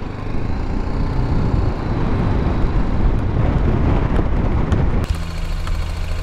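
BMW G310GS single-cylinder motorcycle being ridden on a dirt track, its engine buried in a dense rush of wind noise on the microphone. About five seconds in this cuts off suddenly and gives way to a steadier low hum.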